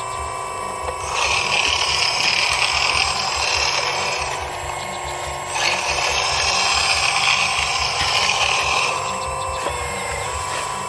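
RC hydraulic excavator's hydraulic pump running with a steady whine. Twice it turns louder and hissing for about three seconds each, first about a second in and then from about five and a half seconds, as the hydraulics work the boom and bucket.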